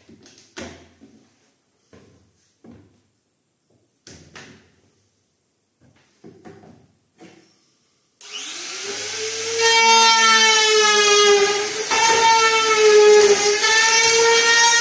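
Light clicks and knocks of tool handling, then about eight seconds in a small high-speed trim router starts and runs with a loud, steady whine as it works along the straightedge on a decorative panel.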